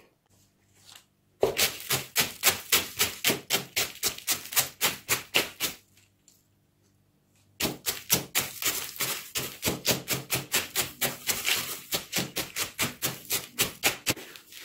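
Eggshells being crushed in a plastic bucket by pounding them with the end of a wooden rod: fast crunching strikes, about five a second, in two long runs with a short pause between them.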